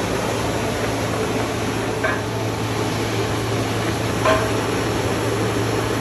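Steady rushing noise with a low hum from an iron-melting foundry furnace running during tapping of molten iron. A steel rod clinks against the furnace spout twice, about two seconds in and again about four seconds in.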